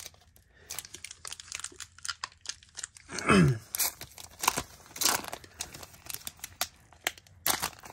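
Foil wrapper of a Pokémon Celebrations booster pack being torn open and crinkled by hand: irregular crackling and ripping, with one louder sound falling in pitch about three seconds in.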